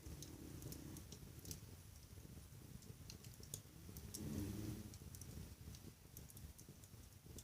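Wood fire in a fireplace crackling softly, with scattered sharp snaps and pops. A low rumble about a second long comes about four seconds in.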